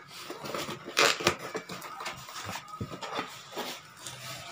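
Corrugated cardboard box flaps being pulled open and handled, with irregular scraping and rustling and a louder crackling scrape about a second in.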